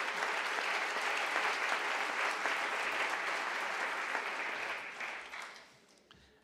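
Audience applauding in a hall, steady, then dying away about five seconds in.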